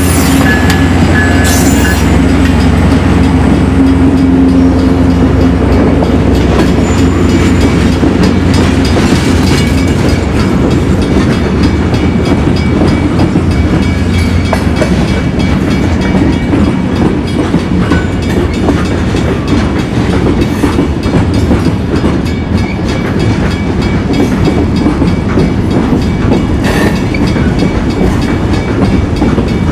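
Union Pacific diesel switcher locomotive's engine running as it passes close by, then a long string of covered hopper cars rolling past with a steady rumble and clacking of wheels on the rails.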